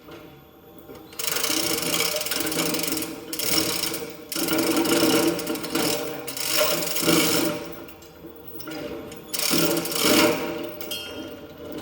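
Fast mechanical rattling in several bursts of one to three seconds each, with short pauses between them.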